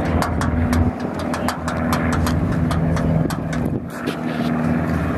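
An engine idling steadily, with a rapid, irregular run of sharp clicks over it.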